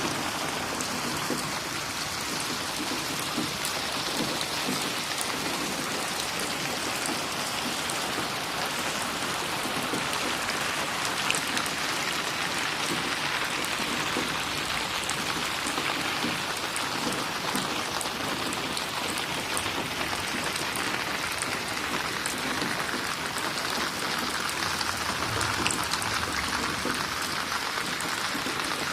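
Steady rain falling, with close drops pattering and splashing on a surface. There is no thunder.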